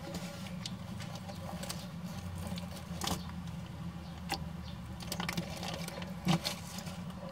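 Light rustling and scattered crackling clicks in dry leaf litter and soil, with one louder knock about six seconds in, over a steady low hum.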